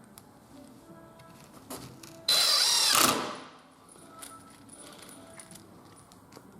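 Cordless drill driving a truss screw into a wooden furring strip: one short run of under a second that starts abruptly, then winds down with falling pitch a little after the middle.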